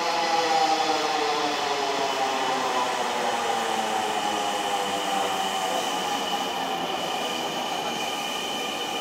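Dhaka Metro Rail electric train pulling into the platform and slowing to a stop. Its whine falls steadily in pitch as it slows, and a steady high tone comes in about three seconds in as it draws to a halt.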